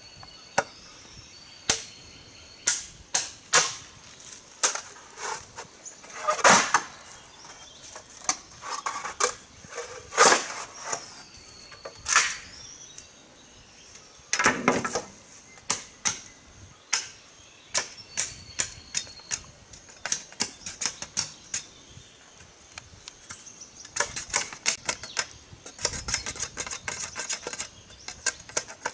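Machete striking and trimming a bamboo pole: irregular sharp knocks, with a few heavier strokes in the first half and a quick run of light strikes near the end.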